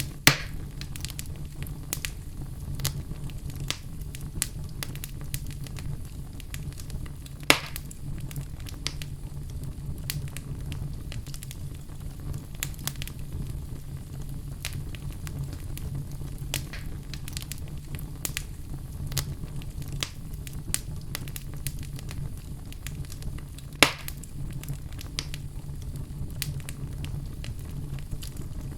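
Crackling fire: a steady low rumble with frequent small crackles and three sharp, louder pops, one about a second in, one about seven seconds in and one near the end.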